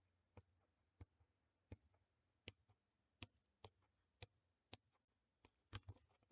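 Faint, sharp taps of a football against a foot, about one every half second to second, as the ball is kept up in the air.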